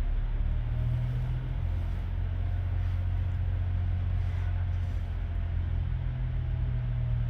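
Steady low machine hum with a faint hiss over it.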